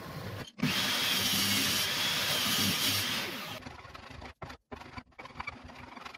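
Woodworking sounds. A pull saw cuts a thin strip of wood, then about three seconds of loud, steady rasping noise follow. Then come quieter short scrapes and clicks as a hand plane works a wooden board.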